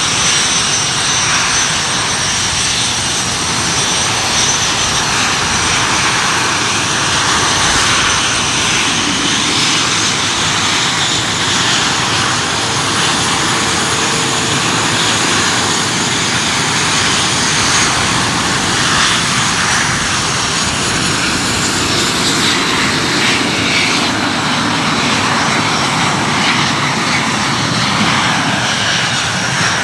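Several BAE Hawk T1 jets running their Adour turbofan engines on the ground: a steady jet rush with a high turbine whine over it.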